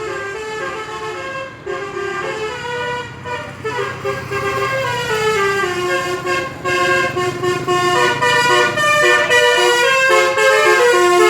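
Basuri telolet musical horn on a Daihatsu Gran Max playing a tune: a string of held horn notes stepping up and down in pitch, getting louder in the second half.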